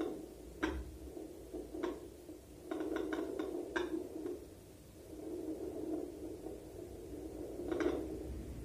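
Fetal Doppler's loudspeaker giving out a low rushing noise that swells and fades, with scattered scratchy clicks, as the gel-covered probe is moved over the belly. It has not picked up the baby's heartbeat: these are the noises heard while the heartbeat is lost.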